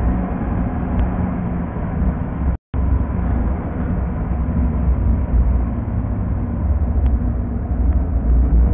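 Car engine and tyre noise heard from inside the cabin through a dashcam microphone, sped up to double speed: a steady low drone. About two and a half seconds in it cuts out to silence for a moment.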